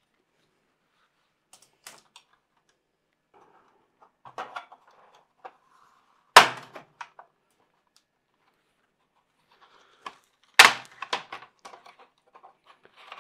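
Plastic clips of a Samsung NP-R519 laptop's top cover (palmrest) clicking and snapping as the cover is pried off. The cover comes free in sharp separate snaps: a few small clicks, one loud snap about six seconds in, and a quick run of loud snaps near the end.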